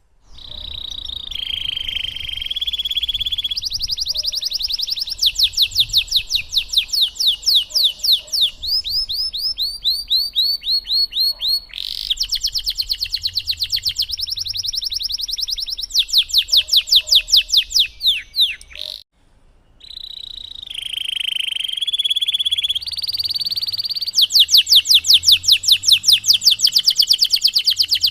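Domestic canary singing a long, continuous song: fast trills and rolls of rapidly repeated notes alternating with short held whistles. The song breaks off for about a second two-thirds of the way through, then starts again.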